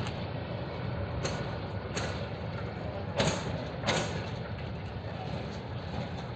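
Passenger train coaches rolling slowly past: steel wheels clack over a rail joint in pairs of knocks about two-thirds of a second apart, twice, over a steady low rumble and hum.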